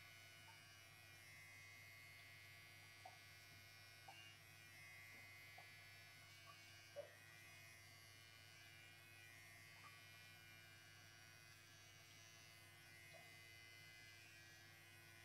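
Faint, steady buzz of electric hair clippers trimming a Persian cat's long fur, with a few soft ticks.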